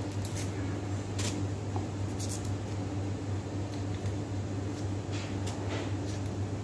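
Steady low hum of kitchen ventilation, with a few faint soft clicks from hands pressing filling into fried potatoes.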